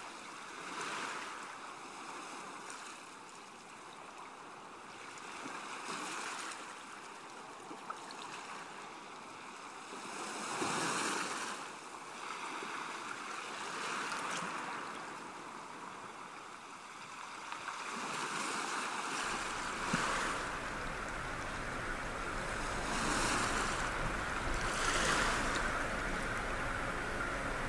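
Sea waves washing and surging, the rush of water swelling and fading every couple of seconds. About two-thirds of the way through it turns into a fuller, steadier rush of water with a low rumble underneath.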